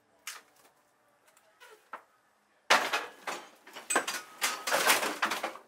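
Concrete Atlas stone being lifted and loaded onto a wooden platform: a few faint knocks at first, then about two and a half seconds in a sudden loud knock followed by a run of loud scraping and knocking as the stone is pushed up onto the platform.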